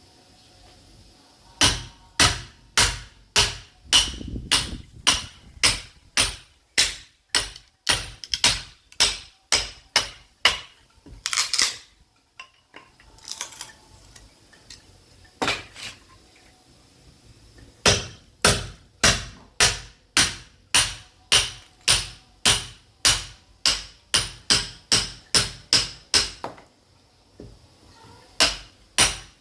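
Sledgehammer striking a steel chisel to split caviúna firewood: a steady run of sharp, ringing blows about two a second, with a pause of a few seconds about halfway through.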